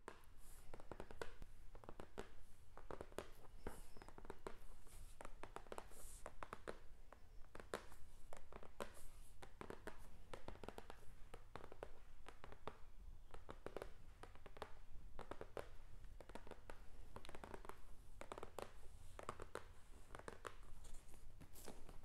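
Hands handling a cardboard box, fingers scratching, rubbing and tapping on the cardboard in a run of short scrapes and taps, over a steady low hum.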